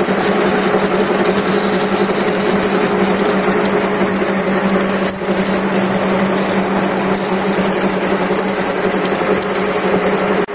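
Steel-ball grinding machines running: a steady machine hum over a constant noisy rush of steel balls circulating in the grinding plates, with a brief dip about five seconds in.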